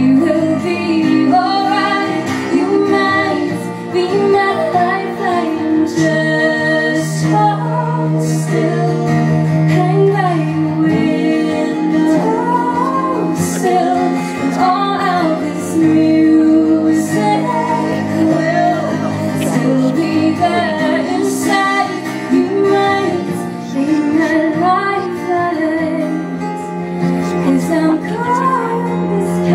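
Live acoustic music: two acoustic guitars playing steadily under a woman singing the melody.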